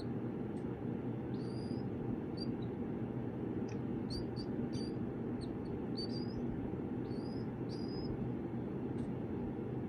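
Killdeer chicks peeping: repeated short, high, thin peeps, each sliding upward, over a steady low hum.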